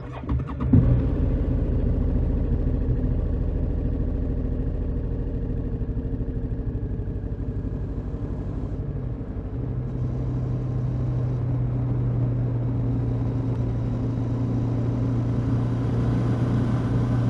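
Suzuki V-Strom 650's V-twin engine starting, with a brief rise in revs about a second in, then idling steadily.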